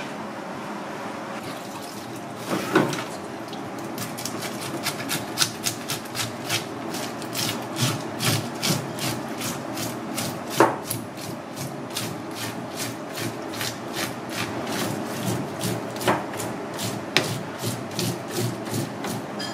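Fish scaler scraping scales off a whole fish in quick repeated strokes, about three a second, from about four seconds in, with a few louder strokes along the way.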